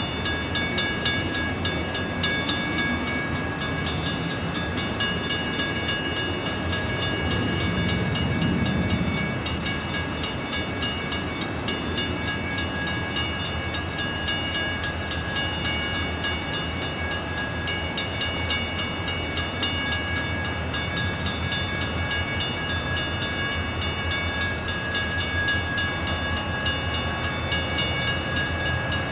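Conrail diesel freight locomotives approaching at the head of a freight train: a steady rumble of the engines and of wheels rolling on the rails, holding at an even level, with a slight swell about eight seconds in.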